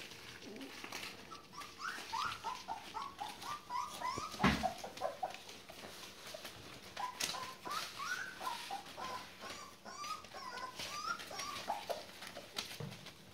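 Young border collie puppies, about four weeks old, whining in two runs of short, rising whimpers, with paws rustling and clicking on newspaper and a single thump about four and a half seconds in.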